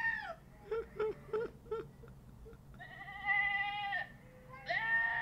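A man laughing hard: high-pitched squealing wheezes, each held about a second, with a few short chuckles in between.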